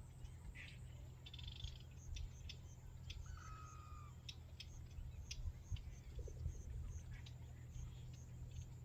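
Faint outdoor ambience: regular high chirps, a short falling bird-like call about three seconds in, and scattered light clicks over a low steady rumble.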